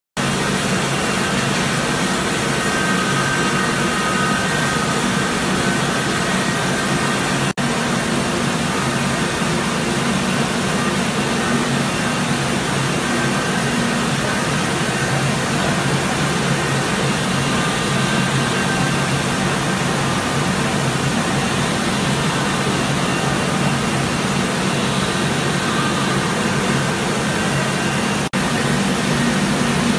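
Machines of a 40-ton-per-day rice milling line running together: a steady, loud mechanical hum and rushing whir with a low drone. The sound cuts out for an instant twice.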